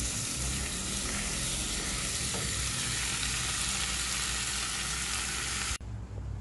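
Squid, petai beans and chillies sizzling hard in a hot wok while a spatula stirs them, a steady hiss. The sizzle cuts off suddenly near the end.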